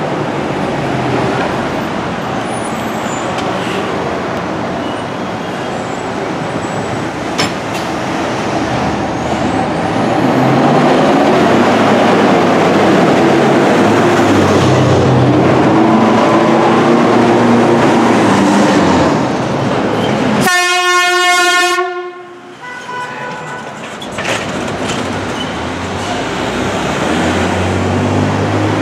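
Fire engines and an ambulance drive past one after another, their engines and tyres rumbling, loudest about halfway through as a fire engine passes close. About two-thirds of the way in, a vehicle horn gives one blast of about a second and a half.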